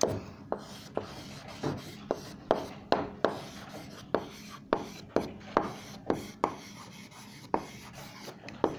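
Handwriting: a run of sharp taps and short scratching strokes of a writing tool on a surface, about two a second and irregular, with a brief pause near the end.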